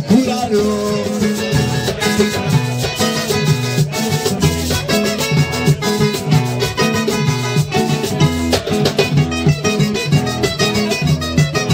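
Live merengue played on acoustic guitars over a stepping bass line and a steady percussion beat, an instrumental passage without singing.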